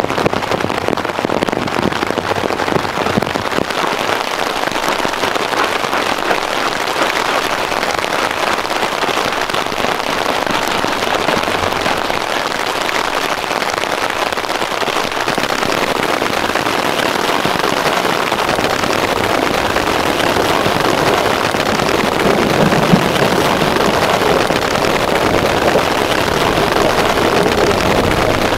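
Heavy rain drumming steadily on a tarp shelter, a dense continuous patter that grows a little louder in the second half.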